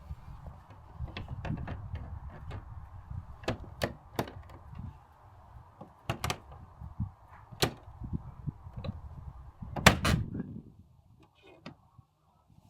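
Irregular knocks and clicks over a low rumble, the loudest knock about ten seconds in, then much quieter.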